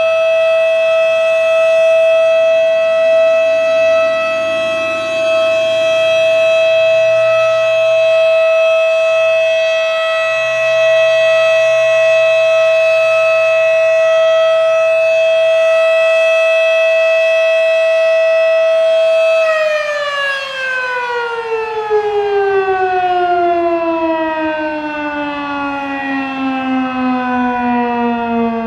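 Federal Signal Model 7 single-tone chopper outdoor warning siren sounding its steady Alert tone, loud and unwavering. About two-thirds of the way through, the tone begins falling steadily in pitch as the siren winds down at the end of the Alert signal.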